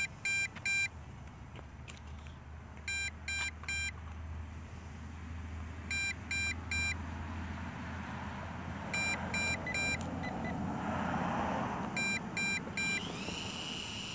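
Drone remote-control transmitter beeping in groups of three short high beeps, one group about every three seconds, while the MJX Bugs 2 B2W is in return-to-home mode. A low steady hum sits underneath.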